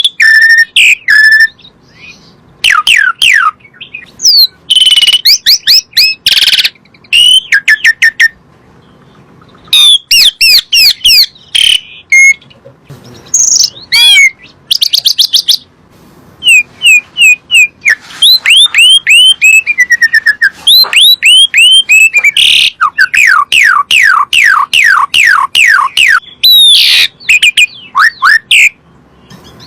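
Asian pied starling (jalak suren) singing: loud, rapid runs of whistled notes, many of them sweeping downward, in bursts with brief pauses between.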